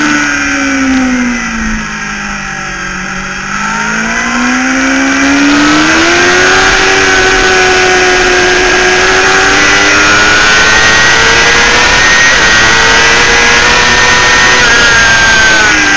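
Sport motorcycle engine heard from onboard, with wind rushing over the microphone. The engine note falls and goes quieter for the first few seconds, then climbs and holds high under throttle while the wind noise grows louder, dipping briefly near the end.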